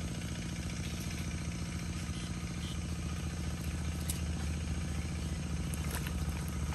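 Steady small-motor drone with an even, rapid pulse, and a couple of faint clicks about four and six seconds in.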